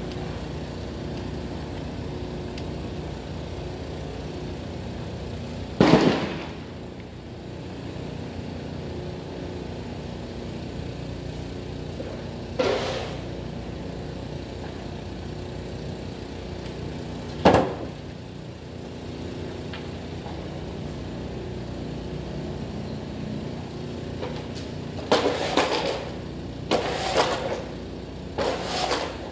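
Steady low range rumble broken by three single sharp gunshots several seconds apart, each with a short echoing tail. Near the end comes a quick run of clicks and clacks.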